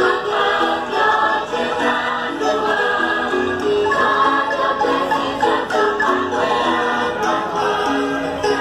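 Choir singing a church hymn with light instrumental and percussion accompaniment.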